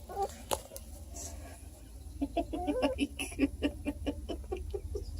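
Two-day-old beagle puppies making a rapid run of short squeaks and grunts, about four or five a second, starting about two seconds in.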